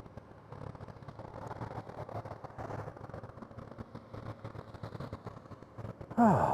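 Motorcycle riding at road speed, its engine running under a rough, uneven rush of wind noise on the helmet microphone.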